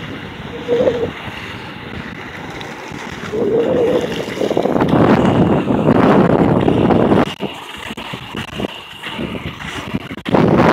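Wind buffeting the microphone of a fast-moving skater, over the steady rolling rumble of 110 mm MPC inline speed-skate wheels on asphalt. The rush swells loudest in the middle, from about three to seven seconds in.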